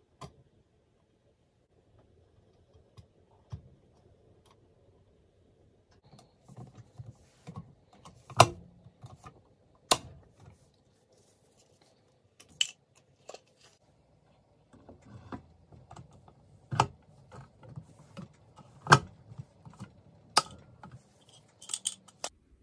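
Long-handled lever pop-rivet tool squeezed in repeated strokes, setting pop rivets through a fan's sheet-metal base. After a few faint ticks it gives a series of sharp clicks and snaps with rattling between them, as the tool grips and pulls and the rivet mandrels break off.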